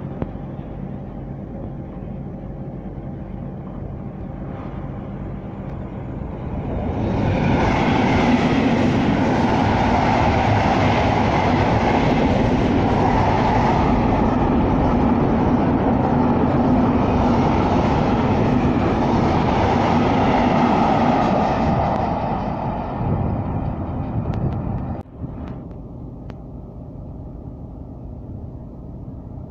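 Container freight train passing close along the platform, a steady rush of wheels on rail that builds for a few seconds, holds loud for about fifteen seconds and then fades. After an abrupt cut near the end, a quieter steady rumble.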